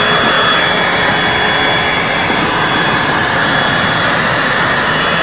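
Automatic plastic liner welder running steadily along a seam: a continuous rushing noise with a steady high whine.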